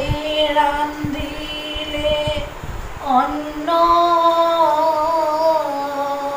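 A woman singing a Bengali devotional song solo, drawing out long held notes: one note held for about two and a half seconds, a brief break about three seconds in, then a slightly higher note held with a wavering vibrato until near the end.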